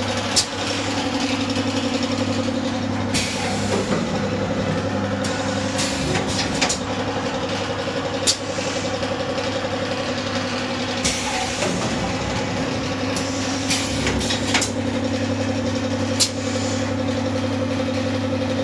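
Carton filling and sealing machine running under test, with a steady motor hum and sharp mechanical clacks every one to three seconds.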